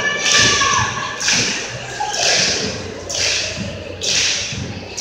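A group of voices shouting a rhythmic chant, about one shout a second, with low thumps under it.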